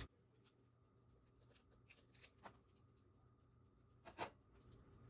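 Near silence with a few faint clicks from handling the metal cookie cutter, then a brief clink a little after four seconds in as a pair of scissors is set down on a metal wire cooling rack.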